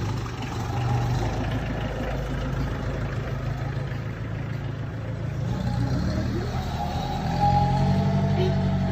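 1979 Premier Padmini's four-cylinder petrol engine running as the car is driven. Its note rises and gets louder about six to seven seconds in as it pulls away.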